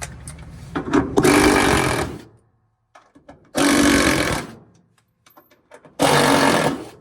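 Power driver running in three bursts of about a second each, backing out the 10 mm bolts that hold a Maytag washer's gear case, with small metallic clicks between bursts.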